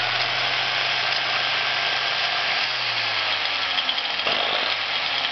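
Old DWT angle grinder's brushed motor running steadily at full speed with a high whine. New carbon brushes are still bedding in against the worn commutator and sparking.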